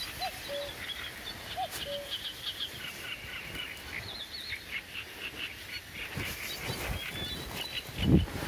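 A common cuckoo calling its two-note 'cuck-oo', a higher note falling to a lower one, twice in the first two seconds, over continual chirping of small birds. A low thump near the end.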